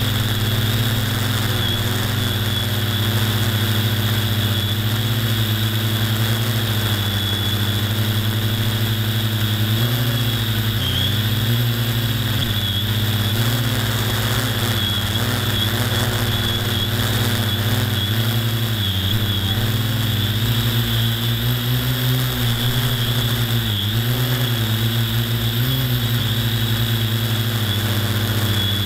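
A steady, low engine-like drone that wavers slightly in pitch, with a constant high whine above it.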